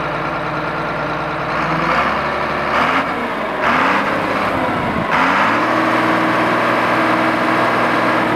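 John Deere 4955 tractor's six-cylinder turbo diesel engine running at idle, then revved up in a couple of blips from about two seconds in. From about five seconds in it holds at a higher, steady engine speed.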